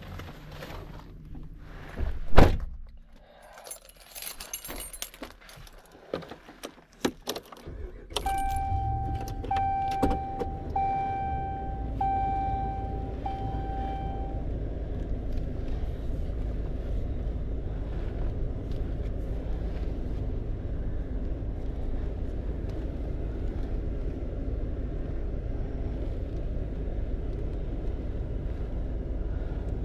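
Keys jangling and a loud thump, then a Ram pickup's engine starts about eight seconds in and settles into a steady idle. A dashboard warning chime beeps about five times as the engine catches.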